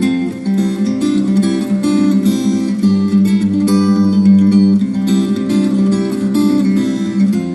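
Background music: an acoustic guitar playing a steady run of plucked and strummed notes.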